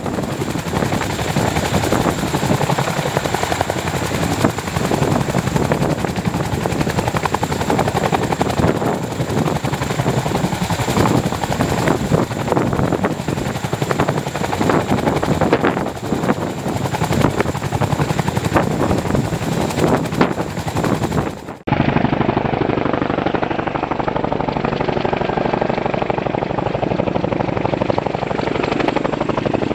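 Boeing CH-47 Chinook tandem-rotor helicopter flying at low level: a loud, steady, rapid beating of its two rotors with a steady high whine over it. About two-thirds of the way through, the sound drops out for a moment and comes back duller.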